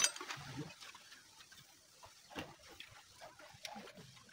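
A sharp metallic clink at the start, then faint scattered taps and clicks of hand tools and parts being handled on a small engine block under reassembly.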